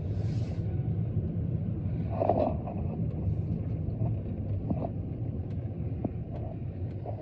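Car driving, with a steady low engine and road rumble, a brief louder noise about two seconds in and a few faint clicks.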